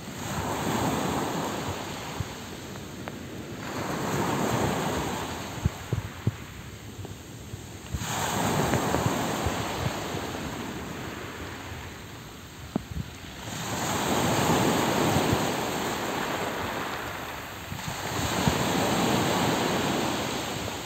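Small waves breaking and washing up a pebble beach, surging in five times about every four to five seconds, with pebbles clicking as the water draws back between the surges.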